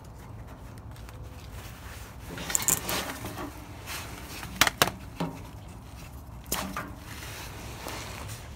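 Scattered sharp plastic clicks and knocks, with some rustle, as hands work the connector and corrugated plastic conduit of a DEF (SCR) heater line to disconnect it. The loudest is a quick pair of clicks about halfway through, over a steady low hum.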